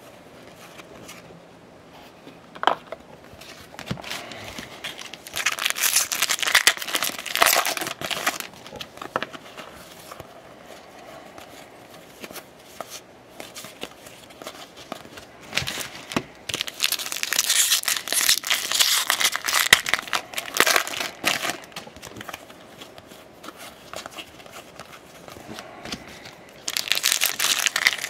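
Rustling and crinkling from a foil trading-card pack and a stack of baseball cards being handled, in three louder stretches. The last comes near the end, as the foil pack wrapper is torn open.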